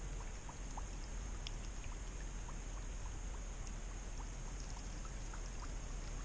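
Quiet pond-edge ambience: a steady low rumble and hiss with faint trickling of water and scattered small ticks.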